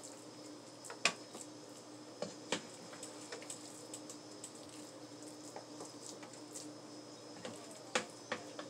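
Ground turkey meatloaf mixture being worked in a bowl: soft squishing with scattered sharp clicks and knocks, the loudest about a second in and near the end.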